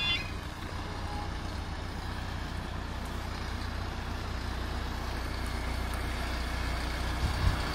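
Low, steady engine rumble, with the level crossing's warbling alarm tones cutting off right at the start. Near the end comes a short burst of louder low thumps.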